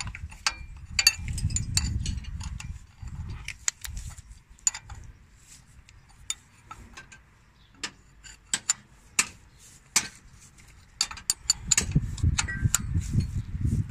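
A metal wrench clicking and clinking on a bolt as a fitting on a truck air compressor is tightened: many sharp, irregular clicks, with stretches of low rumble near the start and again near the end.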